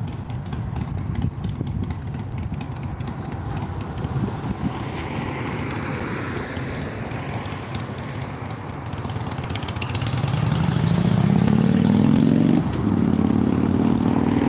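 A motor vehicle's engine accelerating near the end, its pitch rising for about two seconds, dropping suddenly at a gear change and then running on steadily, over a low rumble of traffic.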